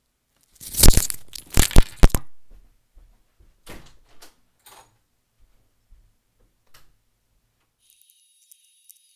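Loud rustling and knocking handling noise from a wired Apple EarPods microphone being moved about as the person gets up, followed by a few softer knocks and rustles. Near the end, a faint hiss with thin, steady high tones.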